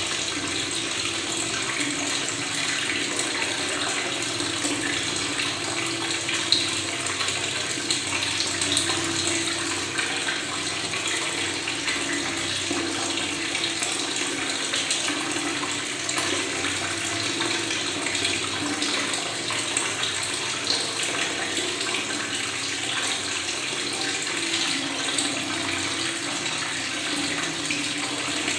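Tap water running steadily and gurgling, with water bubbling as it flows.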